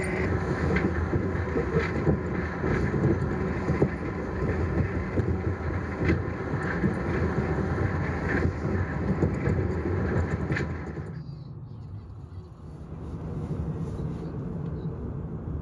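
Ride noise inside a moving vehicle: steady running noise and rumble. About eleven seconds in it cuts suddenly to a quieter, lower rumble of a car driving on a street.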